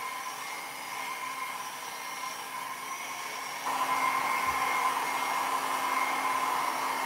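Handheld hot-air dryer blowing steadily over wet alcohol-dye swatches on paper to dry them, with a steady hum under the rush of air. It gets clearly louder a little past halfway through.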